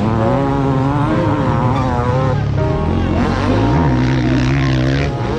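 Several motocross bike engines revving on the track, their pitch swinging up and down with the throttle.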